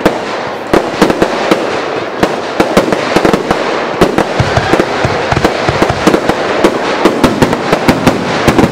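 Fireworks going off in a dense, unbroken crackle of many sharp pops and bangs, several each second.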